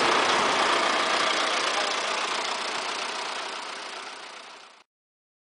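MTZ (Belarus) tractor diesel engines running close by. The sound fades gradually and cuts off to silence near the end.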